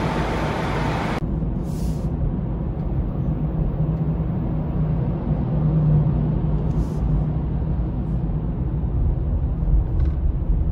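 Loud steady rushing noise on a ferry's vehicle deck that cuts off suddenly about a second in. It gives way to a steady low rumble heard from inside a car's cabin while it waits on the deck.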